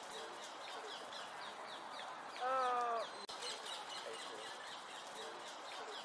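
Small songbirds calling all through, in quick, high, downward-sliding chirps. About two and a half seconds in comes a louder, lower, drawn-out cry that dips in pitch at the end.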